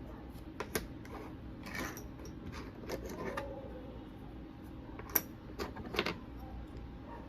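Small hard items being handled: scattered sharp clicks and light rattles, with the sharpest click about five seconds in.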